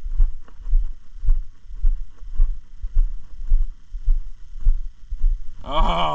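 Footsteps of a person walking on asphalt: low thuds about two a second. A brief sound from a person's voice comes near the end.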